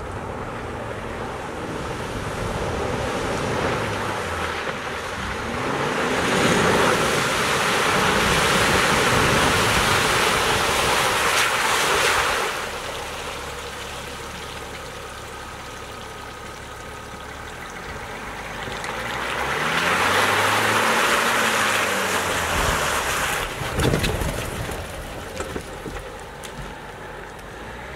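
GMC Sierra AT4's Duramax turbo-diesel engine revving up and down as the pickup drives through a muddy water puddle, with two long bouts of water splashing and spraying from the tyres. A single sharp thump comes near the end as the tyres go onto the logs.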